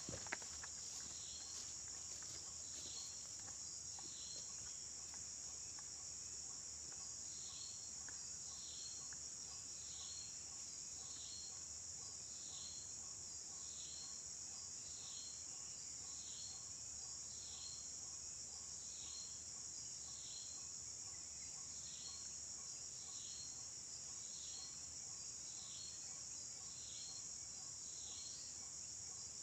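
Steady high-pitched insect chorus, with a short chirp repeating about once a second over it. A single click sounds just after the start.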